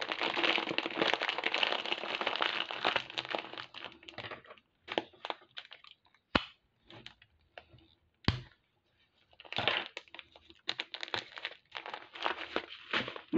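Clear plastic bag of glass seed beads crinkling as it is folded and handled: steady crinkling for the first few seconds, then scattered crackles with two sharp clicks, and crinkling again near the end.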